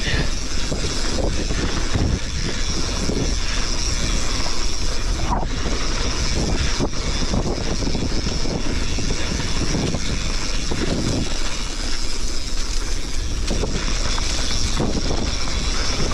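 Wind rushing over a body- or helmet-mounted action camera's microphone as a mountain bike descends a dirt trail at speed, with the tyres rolling on dry dirt and the bike knocking and rattling over bumps.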